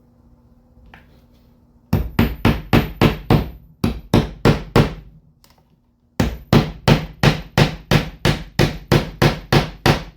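Hand hammer striking rapidly and evenly, about three to four blows a second, in two runs of a dozen or so blows each with a short pause between.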